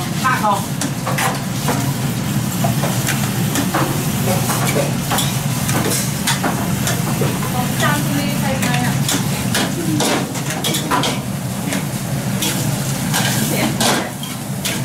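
Fried rice frying and sizzling in woks, with metal spatulas repeatedly scraping and clanking against the woks over a steady low hum.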